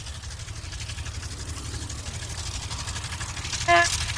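A veteran car's engine running as the car drives along, a steady low chugging. Near the end its horn toots once, briefly.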